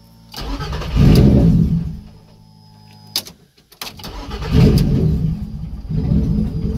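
3.2-litre VR6 engine started on an ultracapacitor bank in place of the battery: it catches almost at once and flares up, dies back after about a second and a half, then, after a couple of clicks, is started again about four seconds in and settles into a steady idle. The idle is under heavy alternator load recharging the capacitor bank.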